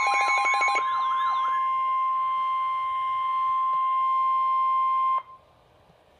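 Emergency alert tone: a steady, loud single beep just above 1 kHz, typical of the 1050 Hz NOAA Weather Radio warning alarm, with warbling, siren-like sweeping tones fading out in the first second and a half. The tone cuts off suddenly about five seconds in, leaving near silence.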